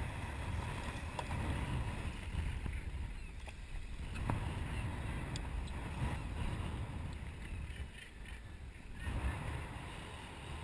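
Wind and water noise around a small open boat on the ocean: an uneven low rumble with a few faint clicks.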